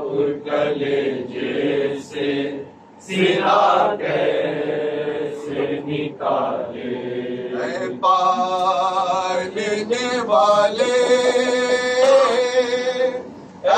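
Men's voices chanting a noha, a Shia Muharram lament, with a short break about three seconds in.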